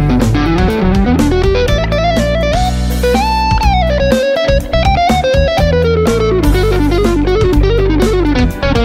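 Carparelli electric guitar playing a fast melodic lead line over a backing track with bass and drums. About three seconds in, one high note is held and then slides down before the quick runs resume.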